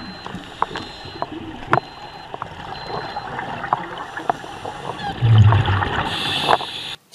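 Scuba diver breathing through a regulator underwater: a bubbly gurgle of exhaled air with scattered clicks, a loud low bubbling rumble about five seconds in, then a short hiss of inhalation just after.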